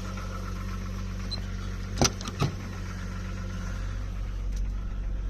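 1997 Jeep Grand Cherokee engine idling steadily, with two sharp clicks about two seconds in and a fainter one later.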